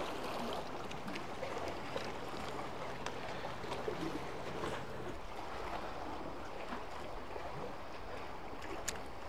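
Seawater washing and lapping among concrete tetrapods, a steady rushing wash, with one light click near the end.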